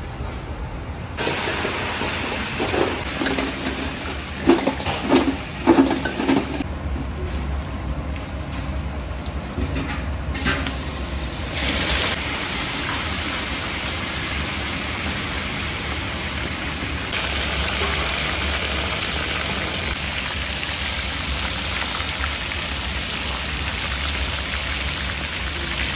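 Hot oil sizzling in a cast-iron kazan as pieces of meat fry, a steady crackling hiss. A few louder thumps come between about two and six seconds in, and the sizzle grows a little louder later on.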